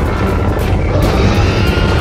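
Cartoon energy-beam blast sound effect: a loud rushing rumble over background music, with a faint whine coming in about a second and a half in.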